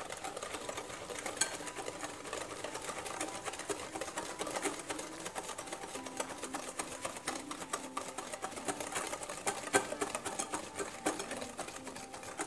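Wire balloon whisk beating a runny egg and sugar mixture in a glass bowl, its wires clicking rapidly and continuously against the glass.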